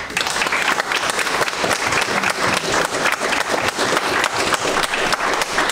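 Audience applauding: a roomful of people clapping densely and steadily, starting suddenly right after a speech ends.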